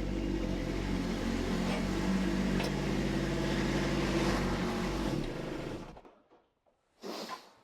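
Kubota B2601 compact tractor's diesel engine running steadily, then shut off and dying away about six seconds in. A short noise follows near the end.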